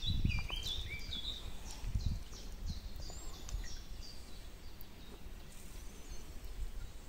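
Small birds chirping in short, repeated high notes, thickest in the first second or so and sparser after, over a low rumbling noise.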